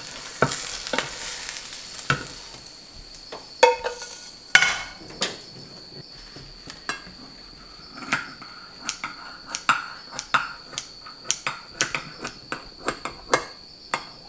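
Freshly fried seafood pancake sizzling as it is slid out of the frying pan onto a ceramic plate, with a ringing metallic knock about four seconds in. From about eight seconds in, kitchen scissors snip through the pancake in quick sharp cuts, about two a second.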